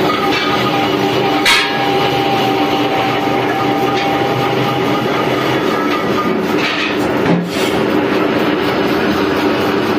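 Metal lathe turning a truck wheel rim while the cutting tool machines its edge: a steady mechanical drone, with a high ringing tone through the first half. Two short knocks, about one and a half and seven and a half seconds in.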